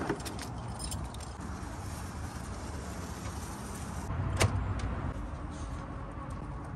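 A few short clicks and one louder knock about four and a half seconds in, over a steady low rumble.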